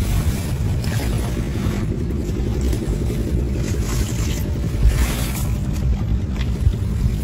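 Wind buffeting the microphone as a steady low rumble, with a few brief scraping sounds as a Komodo dragon tugs at a goat carcass on coarse gravel.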